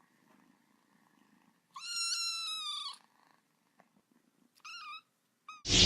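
Domestic cat meowing: one long meow of about a second, then a shorter meow and a brief chirp, over faint purring. Loud music cuts in suddenly at the very end.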